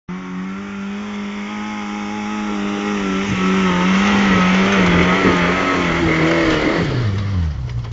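Suzuki Samurai off-roader's engine revving high and steady as it climbs a steep dirt track under load, growing louder as it comes close, over the noise of tyres on loose dirt. The engine note wavers and then drops sharply about seven seconds in as it passes and eases off.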